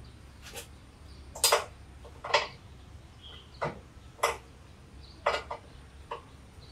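Irregular sharp clicks and clinks, about eight of them, of a hand tool and parts knocking together while a STIHL SR 450 backpack sprayer's engine is taken apart.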